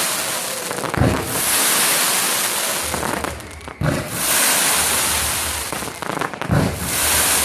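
Fireworks shells bursting three times, about a second in, near the middle and near the end. Each burst is followed by a long hiss and crackle that slowly fades.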